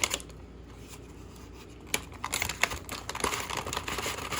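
Plastic bag of raisins crinkling and rustling as it is handled, with scattered sharp clicks and taps, the sharpest at the start and about two seconds in.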